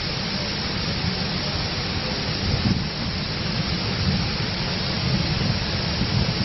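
Dassam Falls, a 144-foot cascade of the Kanchi River: a steady rush of falling water with a heavy, deep rumble underneath.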